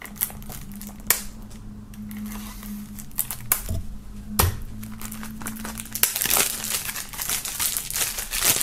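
Clear plastic shrink-wrap being slit with a blade and peeled off a CD jewel case: scattered sharp clicks and scrapes of blade and plastic case, then a run of loud crinkling from about six seconds in.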